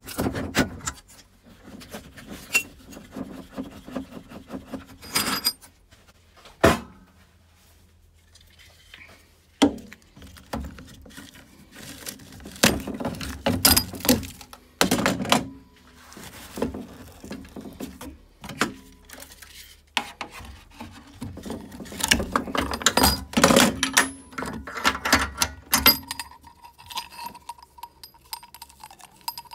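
Hand tools working a rubber hose off a gas boiler's pipework: a screwdriver, then pliers, clicking and knocking against metal fittings and the hose clip. The clinks and thunks come irregularly, with a couple of quieter pauses.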